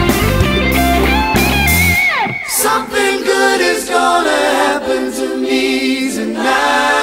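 Rock song: drums, bass and electric guitar with a high held lead note. About two seconds in, a steep falling glide comes as the drums and bass drop out, leaving sustained layered vocal harmonies.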